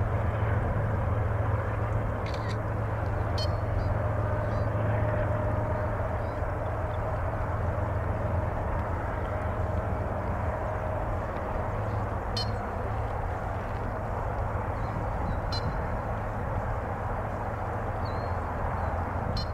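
Distant GE ES44AC diesel locomotives running as rear distributed-power units on an empty coal train, a steady low drone with the rumble of the train, fading slowly as it moves away.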